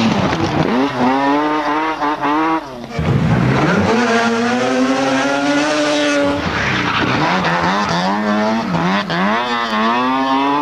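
Mazda RX-7 Group B rally car's carbureted 13B rotary engine revving hard. The pitch climbs, drops sharply about three seconds in and again just after six seconds, then climbs again.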